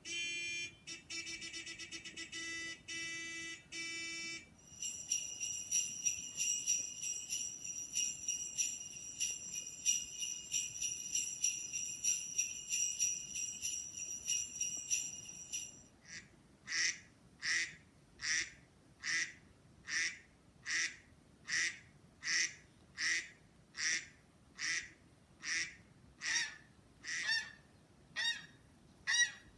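Three sounds in a row: first a few seconds of rhythmic ringing tones, then about ten seconds of high, continuous jingling like jingle bells, then a squeaky toy squeezed over and over, a little more than one squeak a second.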